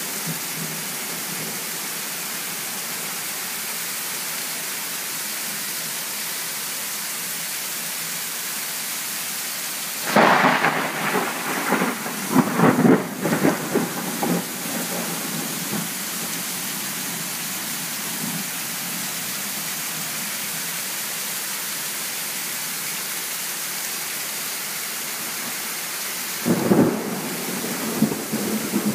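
Heavy rain falling steadily, with water pouring off a roof edge. Thunder cracks about ten seconds in and rumbles on for several seconds, and a second, shorter thunderclap comes near the end.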